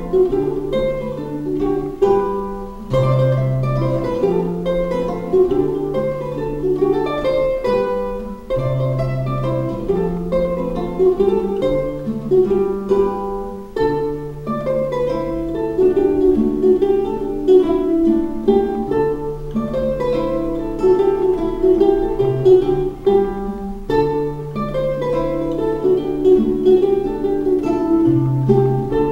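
Ukulele and classical guitar playing a mazurka together: plucked melody over a steady, repeating bass line.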